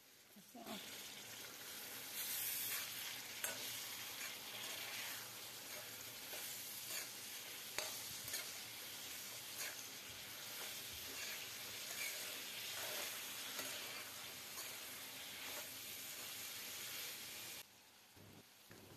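Chopped vegetables sizzling in hot oil in a steel kadhai while a steel spoon stirs them, with short clicks and scrapes of the spoon against the pan. The sizzle stops suddenly near the end.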